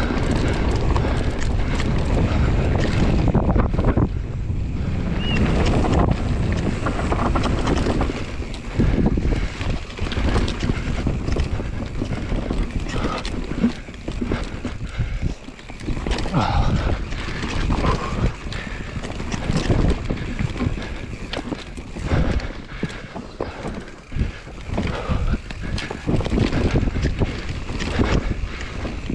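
Mountain bike descending a grass and dirt trail at speed: wind buffets the microphone over tyre rumble, with frequent knocks and rattles from the bike as it runs over bumps.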